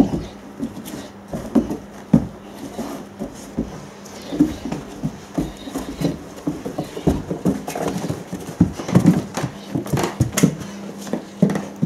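Great Dane puppy's paws thudding on carpeted stairs as it comes down: irregular soft thumps, several a second at times and busiest near the end, over a faint steady hum.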